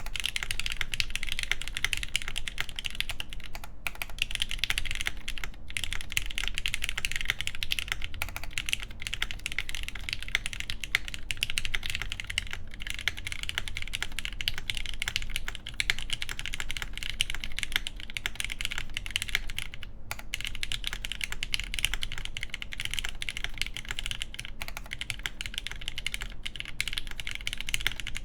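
Continuous fast typing on a mechanical keyboard with lubed, filmed Gateron Yellow linear switches in milky housings, an aluminium half plate and GMK keycaps, with only brief pauses.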